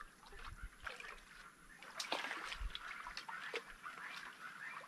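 Shallow water splashing and sloshing as someone wades and works a round hand sieve through it to scoop shrimp, the splashes coming thicker from about two seconds in.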